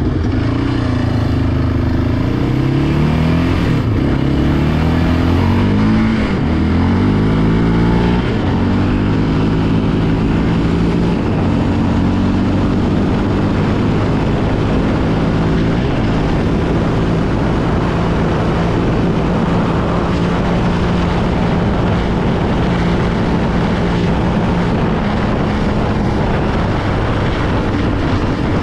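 ATV engine under way, revving up and easing off several times over the first eight seconds or so, then holding a fairly steady speed while riding.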